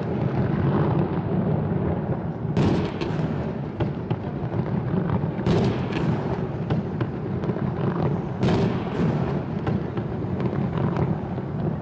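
Fireworks going off: three loud bangs about three seconds apart, with smaller crackling reports between them over a steady low rumble.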